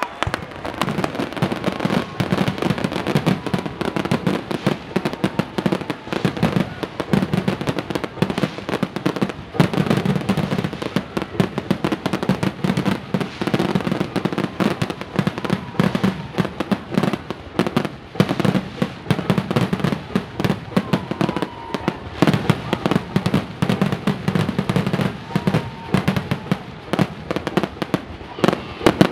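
Fireworks display: aerial shells bursting in a dense, unbroken barrage of bangs and crackles, several a second.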